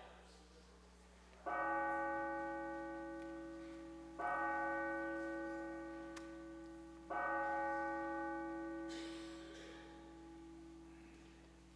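A church bell struck three times, evenly spaced about three seconds apart, each stroke ringing out and slowly fading. These are the three tolls that open the worship service.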